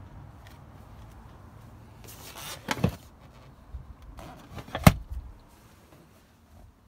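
Rustling and shuffling handling noise inside a car's rear cabin, with a sharp click about three seconds in and a louder one near five seconds.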